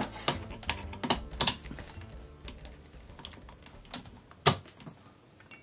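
Irregular clicks and knocks of a mains plug and power cable being handled and pushed into a socket, with a couple of louder knocks about a second and a half and four and a half seconds in.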